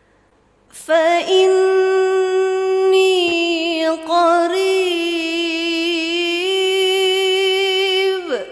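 A woman reciting the Quran in melodic tajweed style, holding one long drawn-out vowel with small ornamental turns in pitch; it starts about a second in and stops just before the end.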